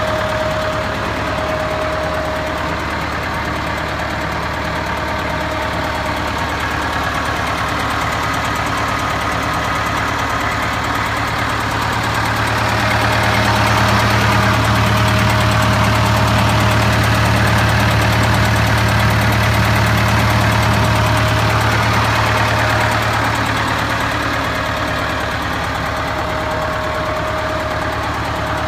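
David Brown 990 tractor's four-cylinder diesel engine idling steadily. It grows somewhat louder for about ten seconds in the middle, then settles back.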